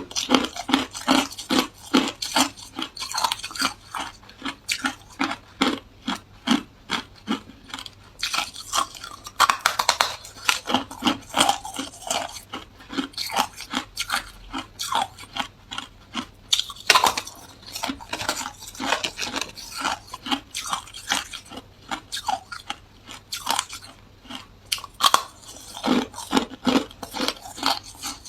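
Hard ice being bitten and chewed close to the microphone: a quick, continuous run of crisp crunches, several a second.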